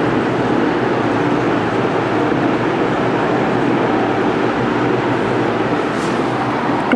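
Steady mechanical background noise with a faint low hum, even throughout with no distinct knocks or changes.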